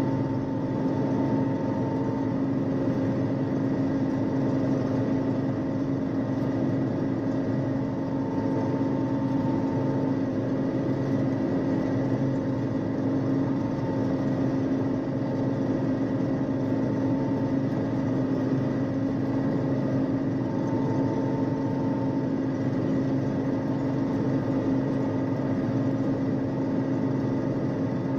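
A 1974 John Deere 6600 combine running steadily while harvesting soybeans: a constant drone of engine and threshing machinery, heard from inside the cab. A fainter, higher whine comes and goes every few seconds.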